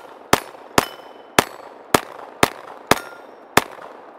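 A 10mm Kriss Vector fired semi-automatically: seven shots at about two a second, steady and evenly spaced. Several hits are followed by a brief ring of steel targets.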